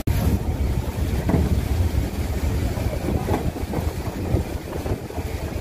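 Steady low rumble of wind on the microphone, mixed with the hiss of fire hoses spraying water.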